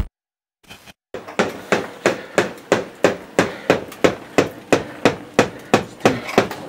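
Hammer blows in a quick, steady run of about three strikes a second, each with a short ring, starting about a second in, after a brief click.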